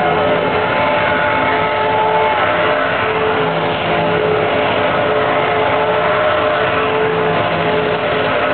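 Racing car engine held at high revs with the rear wheels spinning as the car circles in tyre smoke; a loud, steady note that wavers only slightly in pitch.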